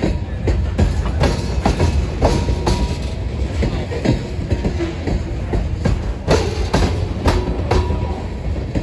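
Freight cars of a grain train rolling past: a steady low rumble with irregular clanks and clicks of wheels over the rails, and a few brief faint wheel squeals.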